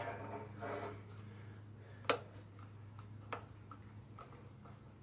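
A hand screwdriver driving a screw into a Grass Flap deflector plate: scratchy turning in the first second, then one sharp click about two seconds in and several lighter ticks after. A steady low hum runs underneath.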